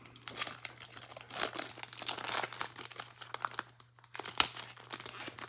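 Silvery wrapper of a Topps baseball card pack crinkling and tearing as it is pulled open by hand, a run of irregular crackles with a sharper rip about four seconds in. The pack is hard to open.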